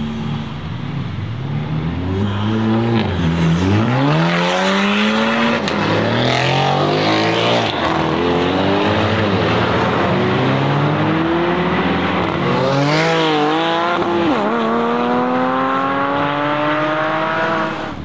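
Tuned 1300 hp Mercedes-AMG E63 S twin-turbo V8 accelerating hard several times, the engine note rising through the revs and dropping back at each gear change.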